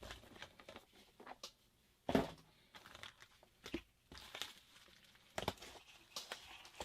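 Plastic packaging crinkling and small parts clicking as a phone screen repair kit is rummaged through, in scattered short rustles with a louder rustle about two seconds in and another near the five-second mark.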